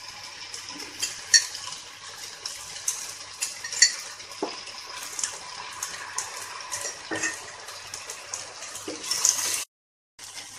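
Wooden spatula stirring and scraping penne in a pan, with repeated clicks and taps against the pan over a steady hiss of the hot sauce, as cornstarch is mixed in to thicken it. The sound cuts out for a moment near the end.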